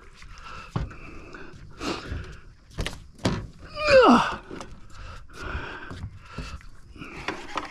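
Scattered knocks, thuds and clicks in a small boat, from the angler and his tackle while he fights a hooked fish. About four seconds in comes one short exclamation, falling in pitch.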